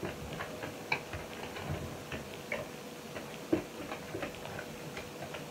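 Faint, irregular light clicks and taps from makeup brushes and product cases being handled, over a faint steady hum.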